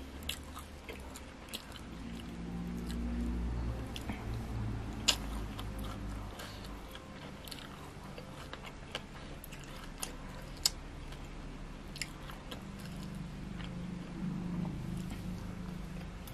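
A person eating close to the microphone, chewing and biting, with sharp clicks now and then.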